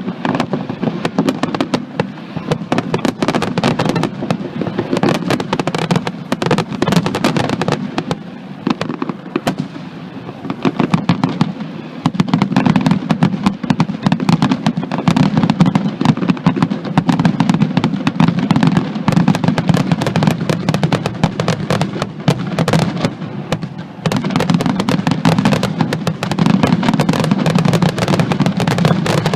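Aerial fireworks display: a dense, rapid barrage of bangs and crackles over a continuous low rumble, growing fuller about twelve seconds in and again near twenty-four seconds.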